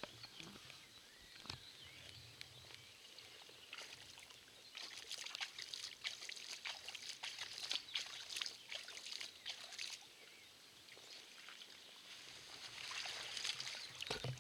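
Light water splashing and trickling in shallow water, in irregular bursts from about four to ten seconds in and again near the end.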